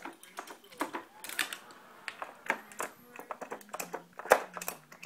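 Hard plastic drawers of a Dog Casino treat puzzle clicking and clattering in an irregular run as a dog works at them, with one louder clack about four seconds in.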